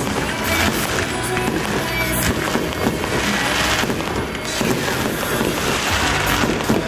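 Aerial fireworks going off in quick succession, many sharp pops and bangs overlapping, with music playing underneath throughout.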